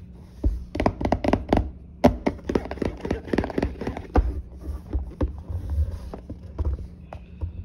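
Hands handling a cardboard smartphone box, fingers tapping, knocking and rubbing against it in quick irregular clicks as it is turned over.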